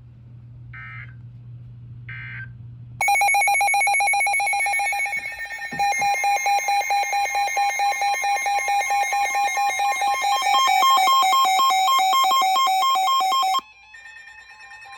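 Emergency Alert System alert: two short bursts of the digital SAME header data, then the loud, steady EAS attention tone for about ten seconds, which cuts off suddenly. It signals that a new warning message is about to follow.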